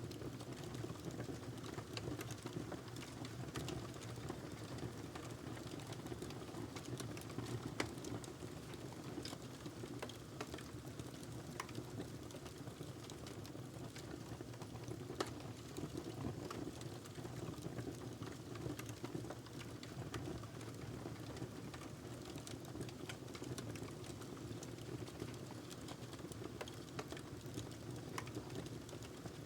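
Log fire burning in a fireplace: a steady low rush of flame with many scattered small crackles and pops, two of them louder, about a quarter of the way in and about halfway.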